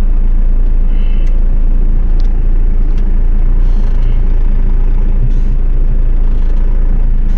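A 4BT Cummins four-cylinder turbo diesel in a 1982 Ford F150 running steadily while the truck drives, heard from inside the cab as a loud, steady low drone.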